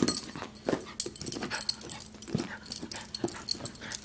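A small dog making sounds at close range while it tussles with a red rubber bouncy ball, among irregular scuffling and knocks.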